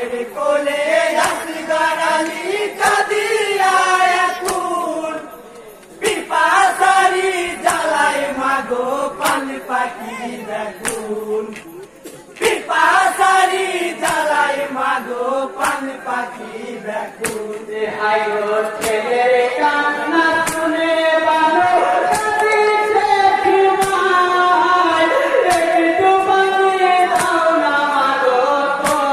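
Male voices singing a Bengali jari (matam/morsiya) lament together, chant-like, over a steady beat of sharp strikes. The singing breaks off briefly about six and twelve seconds in, then carries on.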